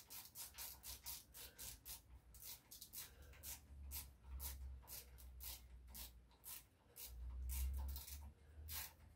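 A hand ratchet wrench clicking faintly in short irregular runs as a bolt is worked, with a few low dull knocks of handling in between.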